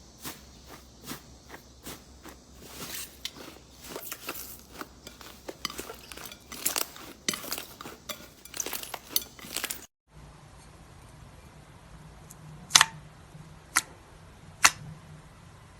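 Slime being squeezed and worked by hand, giving many small crackles and pops. About two-thirds through it cuts abruptly to a low steady hum with three sharp snaps about a second apart.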